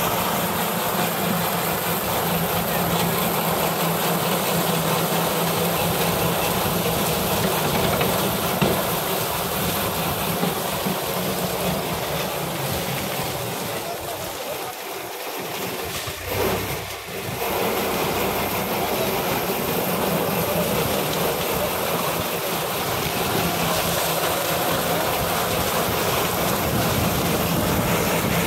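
Tractor engine running steadily as it powers a tractor-mounted sugarcane harvester cutting through standing cane. The sound drops for a few seconds about halfway through, then comes back at the same level.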